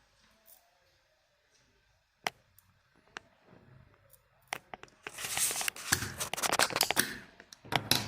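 Soldering work on a circuit board: a couple of sharp clicks, then from about five seconds in a dense crackling sizzle with many small clicks, typical of a hot soldering iron on flux and solder as a capacitor is desoldered.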